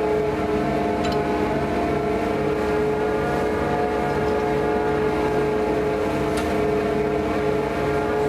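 Fishing boat's engine running steadily, a drone with several held tones over a low throb that pulses about two to three times a second.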